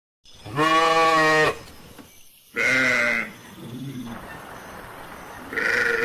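Sheep bleating: three loud calls, the first about a second long and the others shorter, with a fainter, lower bleat between the second and third.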